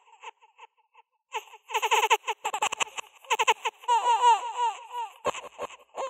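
High-pitched giggling laughter in quick bursts with short gaps, with a run of falling notes about four seconds in.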